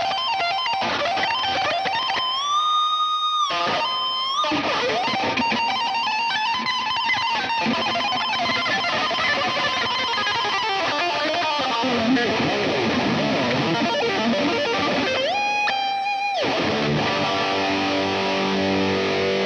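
Speed/death metal with an electric guitar lead playing fast runs and bent notes. Long held, wavering notes come about two seconds in and again near the end, then sustained low chords take over for the last few seconds.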